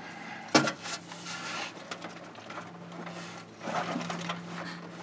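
A sharp metallic clank about half a second in, followed by scraping and shuffling noises of hand work in the engine bay, as someone tries to turn the engine over by hand.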